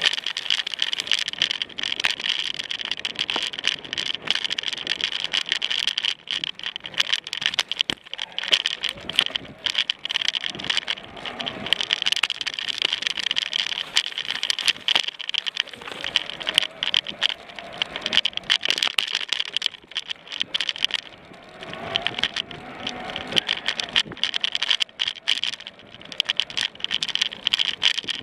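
Mountain bike rattling and clattering over a bumpy dirt singletrack, dense irregular knocks and clicks from the bike and the camera mount, over a steady high hiss that fades about two-thirds of the way through.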